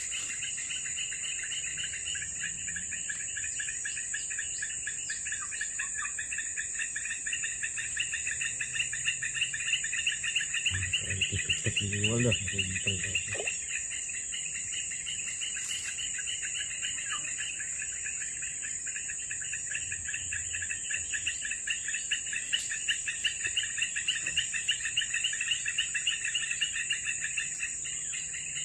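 Insect chorus: a steady high-pitched drone together with a lower, fast pulsing trill that grows louder around the middle and again toward the end.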